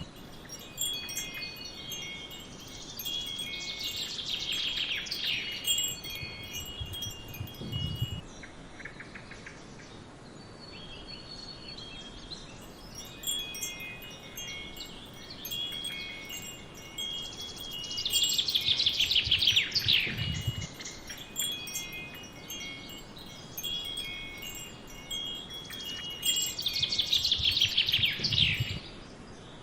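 Wind chimes ringing with overlapping high tones. Three times a louder, rapid cascade of high notes falls in pitch over a couple of seconds.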